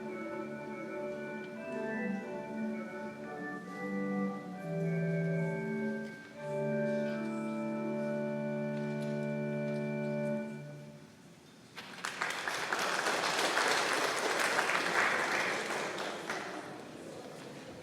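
Organ music ending on a long held final chord, then the congregation breaking into applause that thins out near the end.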